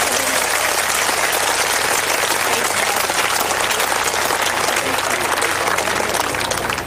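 A large crowd applauding, a dense wash of many hands clapping that dies down near the end.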